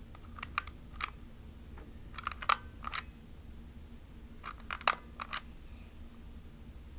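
Light plastic clicks and taps from a plastic film camera being handled, coming in three short clusters of several quick clicks each.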